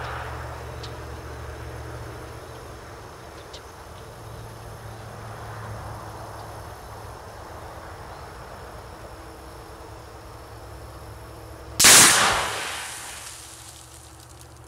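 A single 5.56 tracer round fired into pure oxygen, heard as one sudden loud burst about twelve seconds in as the shot and the oxygen's ignition go off together, dying away over about a second and a half. Before it, a steady outdoor background.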